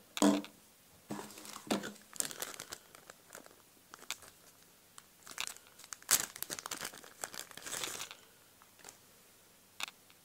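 Clear plastic bag crinkling and rustling in bursts as the earphones are unwrapped. A sharp knock comes just after the start as a plastic wall charger is set down on the wooden table, and a few light clicks follow near the end.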